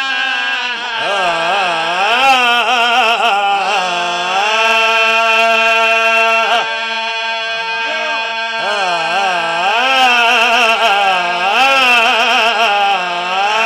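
A man singing a Punjabi devotional majlis recitation into a microphone in long, wavering, ornamented phrases. A second male voice holds a steady drone note beneath him.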